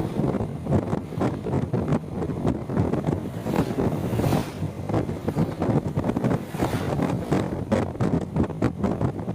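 Wind buffeting the microphone of a moving motorcycle, with the rumble of road and vehicle noise, loud enough to drown out the rider's voice.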